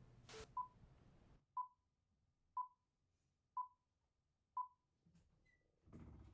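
A brief hiss of TV static, then five short beeps of the same pitch, one a second: the beeps of a film-leader countdown.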